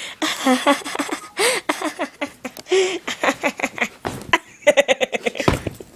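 People laughing and giggling, with a few mumbled words mixed in; a quick run of choppy laugh pulses comes near the end.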